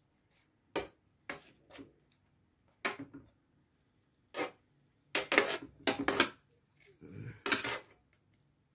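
A cooking utensil knocking and scraping against a pan as chicken pieces are stirred and turned over: a string of separate clinks and scrapes, busiest about five to six seconds in.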